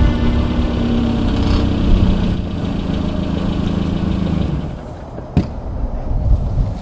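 Small hatchback's engine idling steadily, dropping away after about four and a half seconds. A single sharp click follows about a second later as the car door opens.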